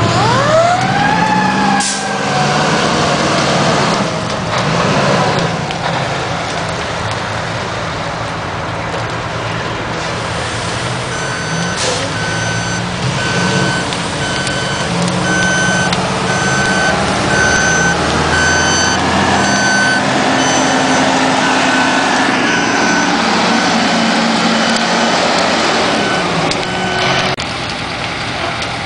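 Fire engines' diesel engines running as the trucks move along the road. Near the start a siren winds up in a quick rising glide and dies away; from about eleven seconds in a backup alarm beeps steadily, about once a second, stopping shortly before the end.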